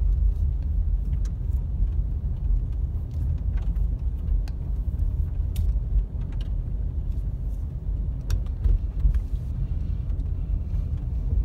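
Steady low rumble of a car driving slowly on a wet street, engine and tyre noise heard from inside the cabin, with a few faint light clicks.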